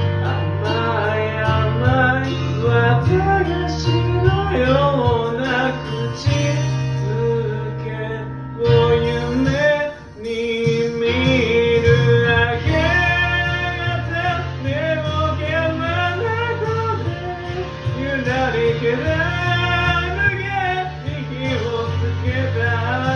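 Karaoke backing track of a pop-rock song with band instruments, a melody line wavering over it, recorded in a karaoke room; the music briefly drops out about ten seconds in.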